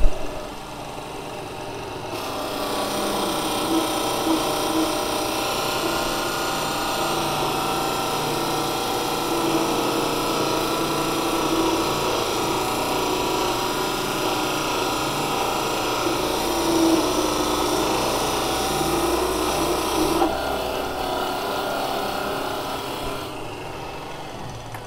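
Unimat SL-1000 micro lathe, belt-driven by a 150-watt DC motor at about 2100 rpm, taking a half-millimetre cut on a metal bar. A steady motor and belt whine runs under a hissing cutting noise that starts about two seconds in and stops shortly before the end.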